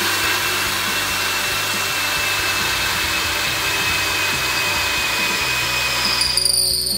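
Einhell TE-CD 18/50 Li BL brushless cordless drill in second gear boring a 13 mm high-speed-steel bit through hardwood: a steady motor whine over the cutting noise. About six seconds in it cuts off suddenly as the drill's protection stops the motor when the bit jams, with the hole already through.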